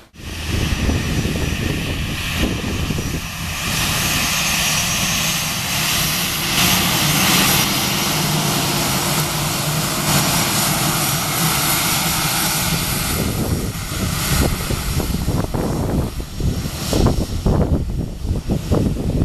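Airbus A319 jet airliner's twin jet engines running loud and steady, a whining tone over a broad rushing noise. Wind buffets the microphone in the last few seconds.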